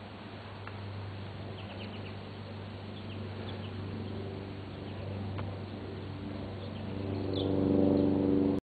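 Scattered short, high bird chirps over a steady low hum. Near the end a droning hum swells to be the loudest sound, then everything cuts off abruptly.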